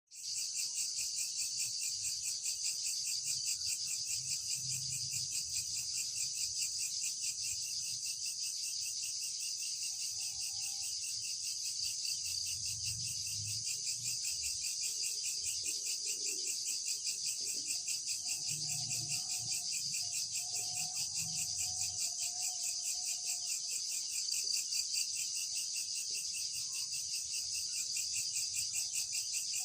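Crickets chirping in a dense, steady chorus of very rapid high-pitched pulses.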